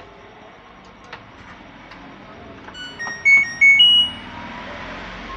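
An LG front-load washing machine control board's buzzer plays its short power-on melody, a few quick electronic beeps ending on a higher, longer note. A faint steady hiss follows, with a few light clicks before the tune.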